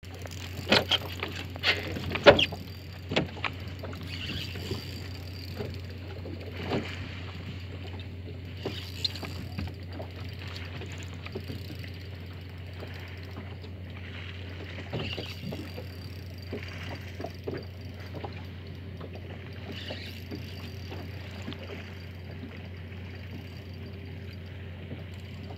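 Small open fishing boat on the sea: water slapping against the hull with a steady low hum underneath. A run of sharp knocks and taps comes in the first few seconds, then only scattered light knocks.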